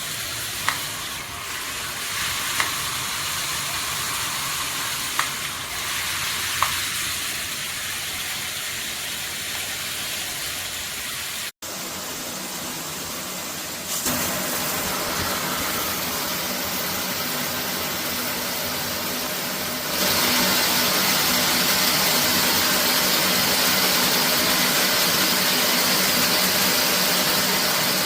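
Water spraying from a shower head, a steady hiss, with a few sharp clicks in the first several seconds. The spray grows louder and brighter about twenty seconds in.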